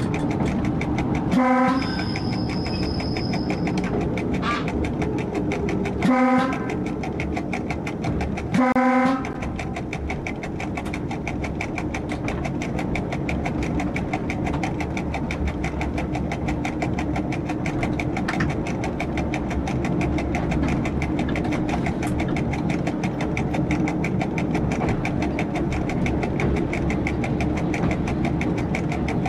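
Diesel local train heard from the driver's cab, its engine and wheels running steadily on the rails, while the train horn sounds three short blasts: near the start, about six seconds in, and a slightly longer one about nine seconds in.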